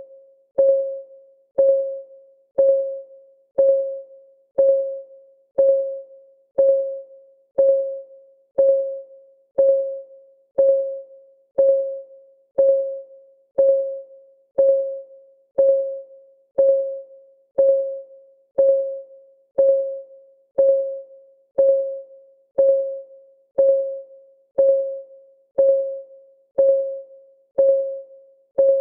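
Clock-ticking sound of a countdown timer: one short, pitched tick about once a second, each dying away quickly, in a steady unbroken rhythm.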